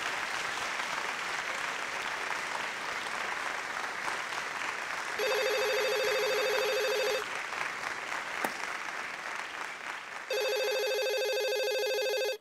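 Audience applause, then a desk telephone ringing twice, each ring about two seconds long, the first about five seconds in and the second near the end.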